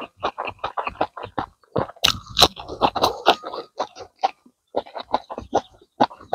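Close-miked mouth chewing on rabbit meat and rice: an uneven run of wet smacks and clicks several times a second, busiest a couple of seconds in.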